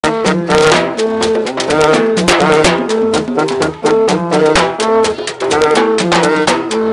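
Upbeat music with brass and drums, a quick steady beat under a horn melody.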